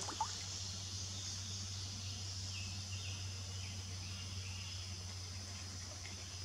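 Steady high-pitched drone of insects, over a low steady hum, with a few faint short chirps about two and a half to four seconds in.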